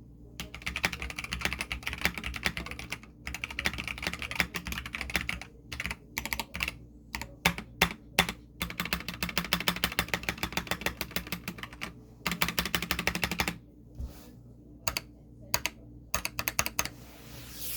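Akko 5087S mechanical keyboard being typed on with its switches not yet lubed: fast runs of keystrokes broken by short pauses, with slower single key presses in the last few seconds.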